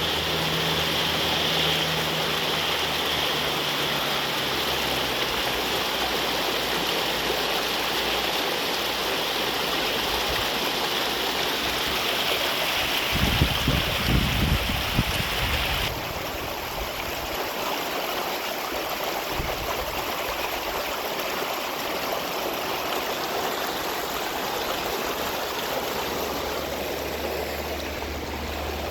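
Steady rush of running rainwater, with a cluster of low thumps about halfway through.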